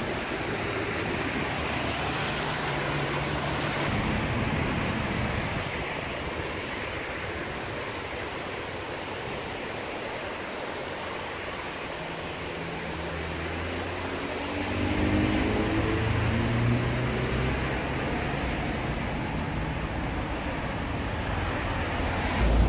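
Ferrari Roma's twin-turbo 3.9 L V8 heard over steady road and traffic noise. About twelve seconds in the engine note comes up, then rises in pitch as the car accelerates, loudest a few seconds later. A short sharp crack comes right at the end.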